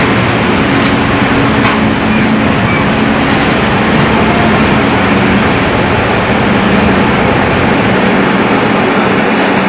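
Passenger train running: a loud, steady rumble and rush with a low hum underneath.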